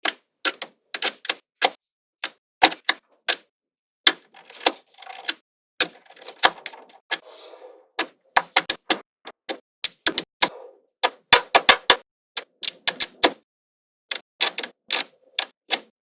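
Small magnetic balls snapping together with sharp, irregular clicks, often several in quick succession, as they are placed and joined one by one. A softer scraping runs between the clicks for a few seconds in the middle.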